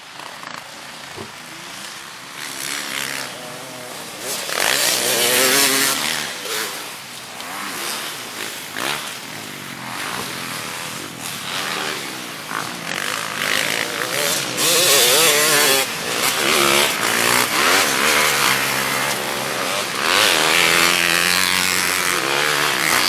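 Big-bike class motocross dirt bikes racing past on a dirt track, their engines revving up and dropping back over and over as they ride the course and jumps. The sound swells and fades several times as the bikes come by one after another.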